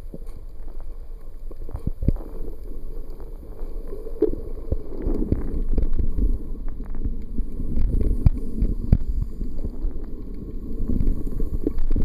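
Muffled low rumbling of water moving around a camera held underwater, with scattered knocks and clicks throughout.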